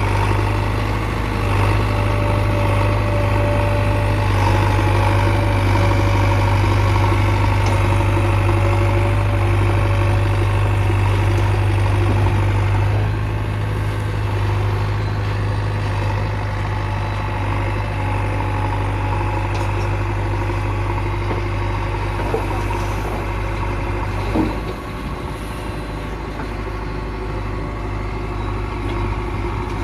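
Heavy diesel engine running steadily with a deep hum, with one sharp knock about twenty-four seconds in, after which it runs a little quieter.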